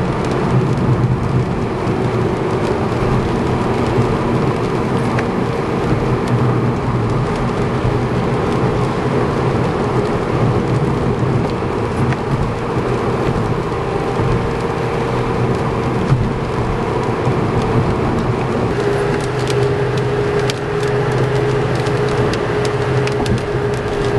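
Inside a car at highway speed: a steady drone of tyre and engine noise, with rain on the windshield and the wipers running. Scattered sharp ticks grow more frequent near the end.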